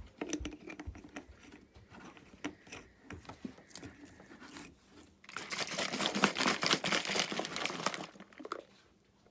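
Crinkling handling noise with scattered small clicks, then a dense, louder stretch of crinkling that starts about five seconds in and lasts some three seconds.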